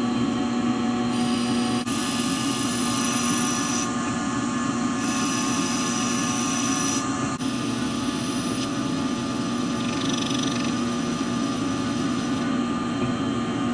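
Metal lathe turning a turbo compressor back plate: a steady machining run with a strong low hum and cutting noise under it, and slight jumps in the sound twice where clips are joined.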